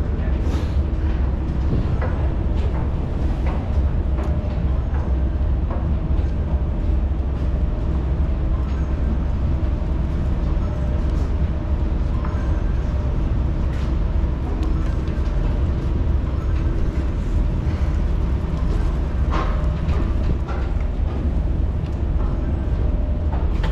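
Docked passenger ferry's engines running steadily: a low rumble with a constant hum, while faint voices come and go.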